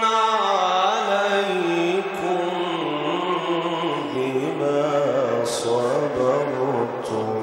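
A man reciting the Quran in the drawn-out melodic mujawwad style: one long melismatic line that slides down in pitch over the first two seconds, then winds and wavers on sustained notes. The voice comes amplified through a microphone and PA speakers.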